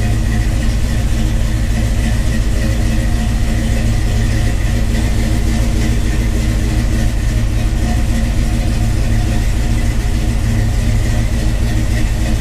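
A 1968 Ford Bronco engine idling steadily, with its newly installed power steering system running. The owner calls it quiet: 'it didn't make a sound.'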